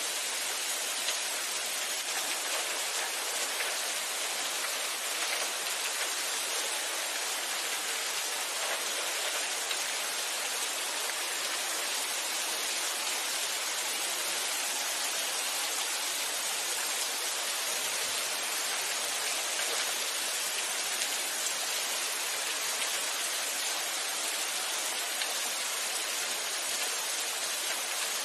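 Steady rain falling, an even hiss with fine patter of drops.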